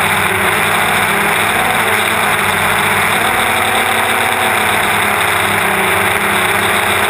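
DJI Phantom quadcopter's electric motors and propellers running in flight, heard from the onboard camera: a loud, steady buzz with several held tones that waver slightly in pitch.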